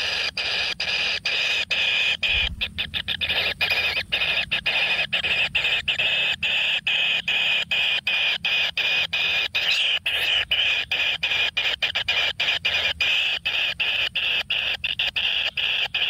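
Kingfisher nestling begging: a continuous hissing call broken into short pulses, about four a second.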